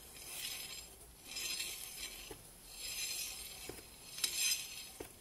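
Motorcycle front wheel and cast-iron brake disc turned by hand past a dial test indicator's plunger, as a run-out check for a warped disc: a soft swishing that swells and fades about every second and a half, with a few light metallic clicks.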